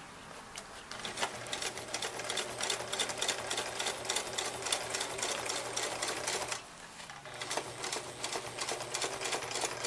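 Electric sewing machine stitching through heavy vinyl, a steady motor hum under rapid needle strokes as a second reinforcing row of stitches is sewn. It starts about a second in, stops briefly after about six and a half seconds, then runs again.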